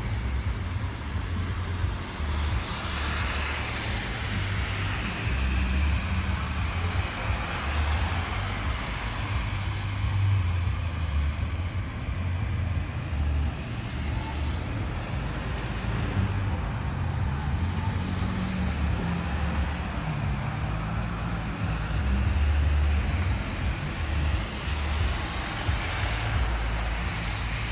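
Traffic on a rain-wet street: car tyres hiss on the wet road, swelling and fading as several cars pass, over a steady wash of rain and a low rumble.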